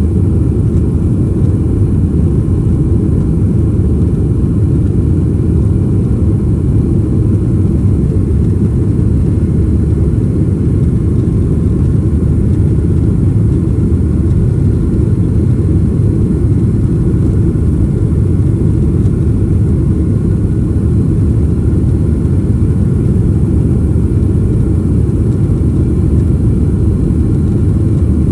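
Cabin noise of a Boeing 737-800 in its initial climb after takeoff: the CFM56-7B24 turbofan engines at climb thrust, heard from inside the cabin as a loud, steady rumble with faint steady tones above it.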